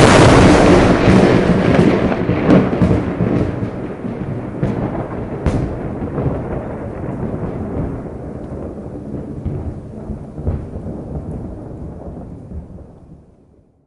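Thunderclap from a close lightning strike: a sudden loud crack, then a long rolling rumble with crackles that slowly dies away, fading out near the end.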